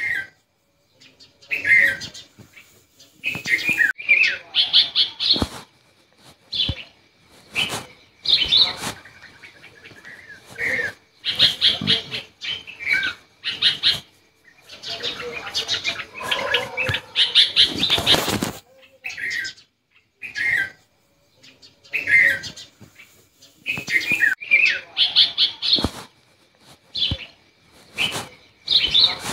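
Small birds chirping in short calls and quick trills, with a plastic bag crinkling as a kitten tugs at it, the crinkling loudest about 17 to 18 seconds in.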